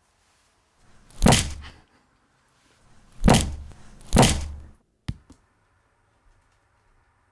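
Three heavy thuds, about two seconds and then one second apart, each dying away quickly, followed by a short sharp click.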